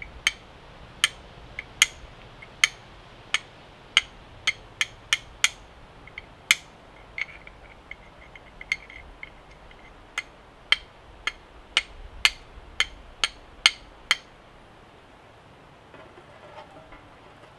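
Flint and steel being struck by hand, a long irregular run of sharp clinking strikes, about one or two a second, throwing sparks onto a piece of charcoal to catch an ember. The strikes stop about three seconds before the end.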